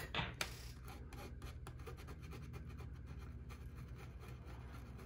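Fiberglass scratch brush scrubbing across burned wood in quick, faint back-and-forth strokes, scouring away pyrography burn to lighten and repair the area.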